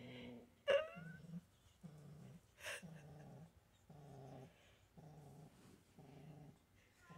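Sphynx kitten growling like a dog as it tugs on a toy held in its mouth: a low growl about half a second long, repeating about once a second. About a second in there is one short, sharp, rising squeak.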